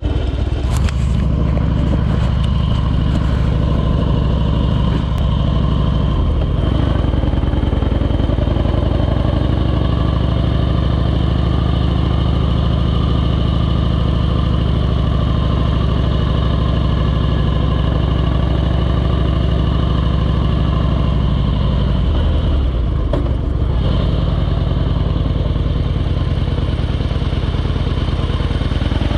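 Harley-Davidson V-twin motorcycle engine running steadily under way, a loud, low, even note. The note changes briefly twice, once early and once near the end.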